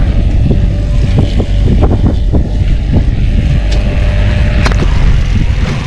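A boat's motor runs under a heavy low rumble with wind buffeting the microphone. Sharp knocks and clatters come through the first few seconds, and a single hard knock near the end.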